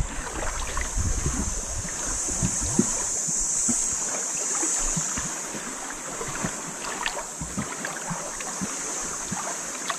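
Steady rushing hiss of wind and sea surf on the shore, with scattered light clicks and knocks.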